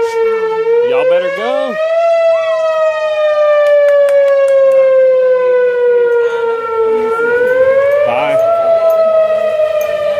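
Outdoor warning siren sounding for an approaching tornado: one steady wailing tone that rises about a second in, slides slowly down for several seconds, then rises again near the end.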